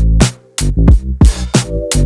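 Electronic background music with a heavy beat: deep kick drums, sharp hi-hats and snares, and a bass line.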